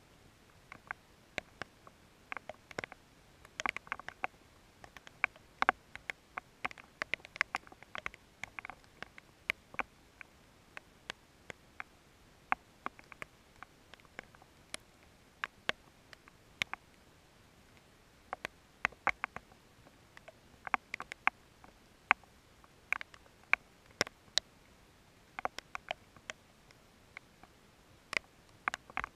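Scattered raindrops striking the camera and its housing: sharp, irregular ticks, sometimes several a second, over a quiet background. No thunder is heard.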